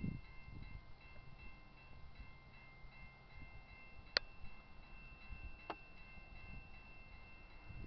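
Railroad grade crossing's electronic warning bell ringing, a steady repeating ding that warns of an approaching train. Two sharp clicks come about four and five and a half seconds in, over a low wind rumble on the microphone.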